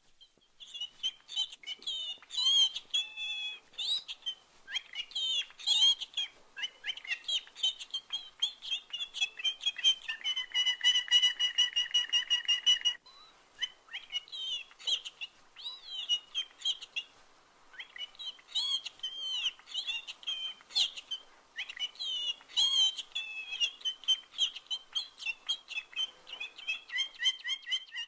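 Domestic canary singing a long, varied song of whistled notes and trills, with a fast, even rolling trill from about ten to thirteen seconds in and a brief lull around seventeen seconds.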